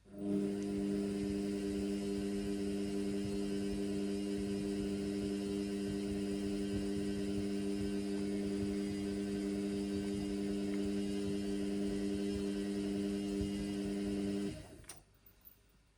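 Indesit washing machine running on a synthetics wash, a steady mechanical hum that stops about fourteen and a half seconds in. The machine is over-sudsed.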